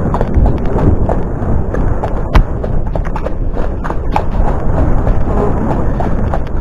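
Hoofbeats of a horse, an Irish Sport Horse, moving at pace along a dirt woodland trail, heard as a run of quick irregular thuds over a constant low rumble on the helmet-camera microphone. A sharper knock stands out about two and a half seconds in.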